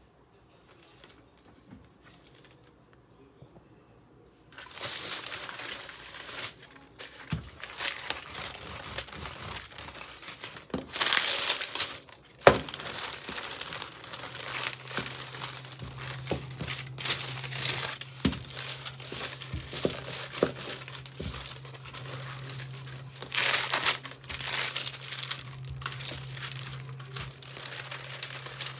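A wooden rolling pin rolling pie dough on baking paper: the paper crinkles and rustles irregularly under the strokes, with sharp knocks of the pin. It starts after about four and a half seconds of quiet, and a low steady hum joins about halfway through.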